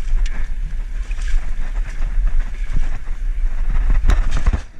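Wind buffeting the action camera's microphone as a heavy low rumble, over the rushing noise of fast river water. About four seconds in comes a short cluster of sharp noises.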